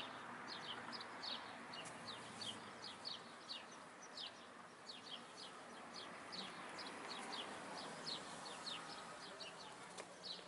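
Small birds chirping steadily: short, high, falling chirps several times a second, over a faint background hum.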